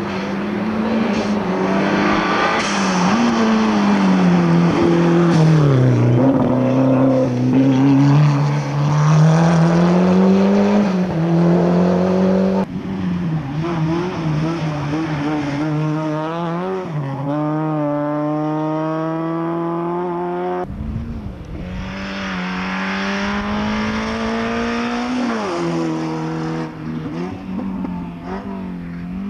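Rally car engine at full effort, revving up and dropping back again and again through gear changes. The sound jumps abruptly twice, from one car or stretch of stage to another.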